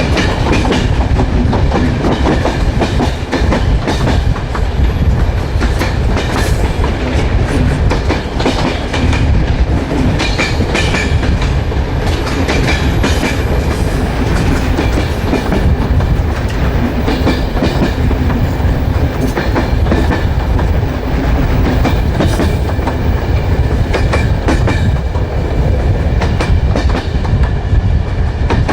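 Train wheels rolling along the rails at running speed: a continuous heavy rumble with irregular sharp clicks and knocks from the wheels and track.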